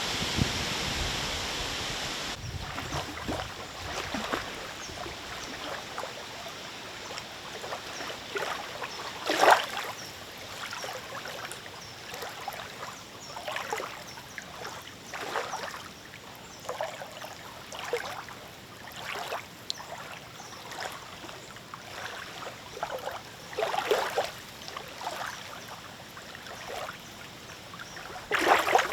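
Small lake waves lapping and splashing irregularly, about once a second, with a few louder splashes. It opens with about two seconds of steady wind noise.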